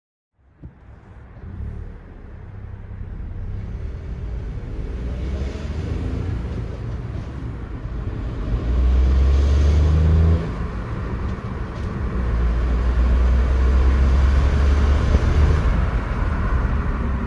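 Škoda Fabia 3 1.0 MPI three-cylinder engine running with a clatter from the worn clutch and a stiff, failing clutch release bearing. The engine noise sets in just after the start and swells, with two louder spells of deep hum about halfway through and again later.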